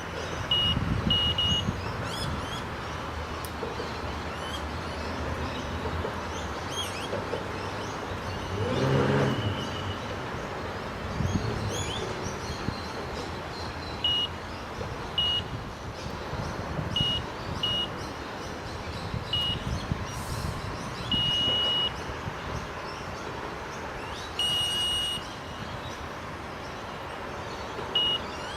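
Electronic carp bite alarm giving about a dozen short beeps at irregular intervals, two of them held longer, as the line twitches: the stuttering, nibbling bites that won't develop into a proper run. A low rumble comes near the start, and a low pitched honk-like sound about nine seconds in.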